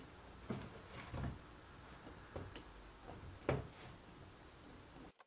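Light knocks and clunks of CV axles being handled and shifted on a wooden workbench, about five in all, the loudest about three and a half seconds in. The sound cuts off suddenly near the end.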